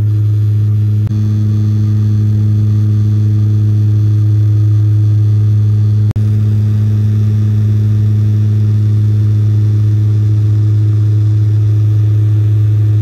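Cabin drone of a 1988-built Dornier 228's twin TPE331 turboprop engines and propellers in steady cruise: a constant, loud low hum with overtones over a rushing noise. There is a brief dropout about six seconds in.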